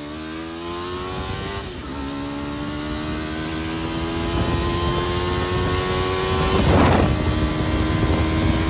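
Buggy's Honda CBR motorcycle engine pulling under acceleration: its pitch climbs, drops at a gear change a couple of seconds in, climbs slowly again, then a short rushing noise near seven seconds as the pitch settles a little lower.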